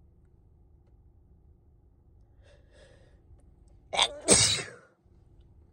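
A person with a cold sneezes once about four seconds in: a short sharp intake-like onset, then a loud spraying burst that trails off. Faint breaths come before it.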